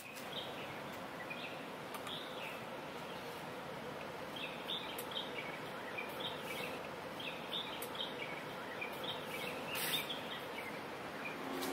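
Steady background ambience with small birds chirping again and again, in short high calls that cluster in the middle, and a brief burst of noise about ten seconds in.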